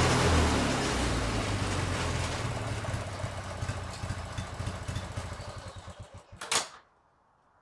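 Briggs & Stratton opposed-twin engine of an MTD riding mower running, then slowing and dying away after being shut off, its firing strokes spreading out as it runs down. It stops with one loud sharp pop about six and a half seconds in.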